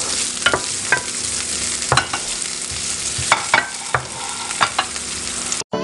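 Chopped onion sizzling in hot olive oil in a nonstick frying pan, stirred with a wooden spatula that clicks and scrapes irregularly against the pan. The sound cuts off suddenly near the end.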